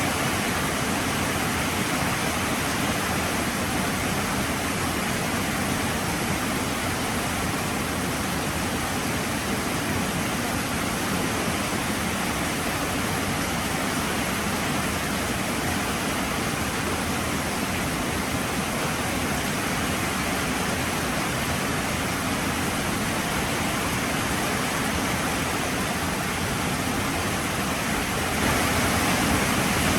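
Heavy rain falling steadily as a dense, even hiss, growing a little louder near the end.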